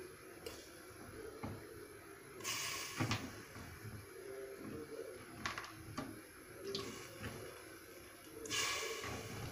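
Splashing of broth in a steel cooking pot as chunks of food are dropped in, twice, with a few light knocks against the pot.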